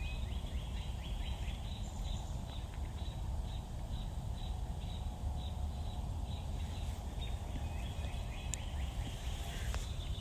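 A faint, high chirp repeated evenly a little over twice a second, fading out after about seven seconds, over a steady low background rumble.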